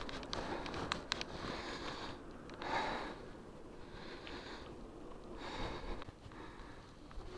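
A cyclist breathing hard and sniffing close to a clip-on microphone under his jacket, a few heavy breaths a few seconds apart, with light clicks about a second in.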